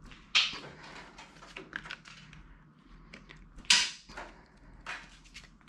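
Playing cards being thrown across a small room: a few short swishes and light taps, the loudest about three and a half seconds in.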